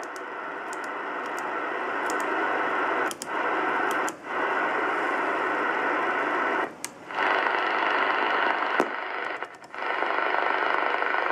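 Uniden AX-144 CB radio's receiver giving out steady band static from its speaker. The hiss cuts out briefly several times, with sharp clicks, as its controls are switched and the channel changes.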